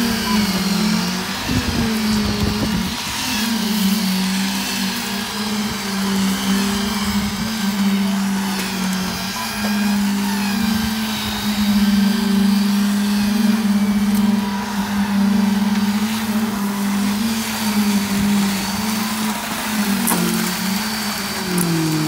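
Concrete-pouring machinery running, a steady motor hum that shifts up and down in pitch as concrete is pumped through the hose.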